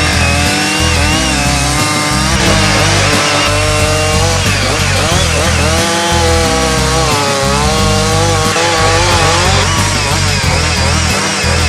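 Gas chainsaw running and cutting into a log, its engine pitch rising and falling every second or two as it revs under load.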